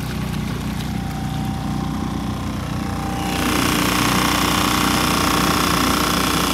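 Small boat outboard motor running under way, growing louder about three seconds in as it picks up speed.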